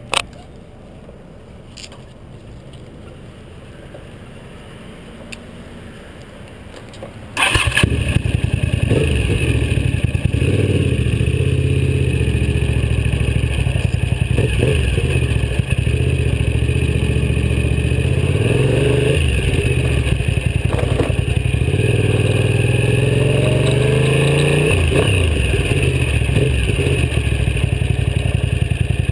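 Sport motorcycle engine heard from a camera mounted on the bike. It is fairly quiet for the first seven seconds, then suddenly much louder, and after that it revs up and down again and again as the bike rides off.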